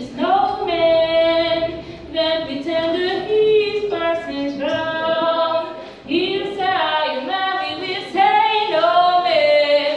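Solo female voice singing unaccompanied, in phrases with long held notes.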